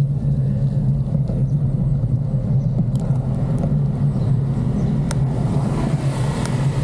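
Steady rumble of road and wind noise while riding a gravel bicycle, with a few sharp ticks. A broader rushing noise swells up about five and a half seconds in.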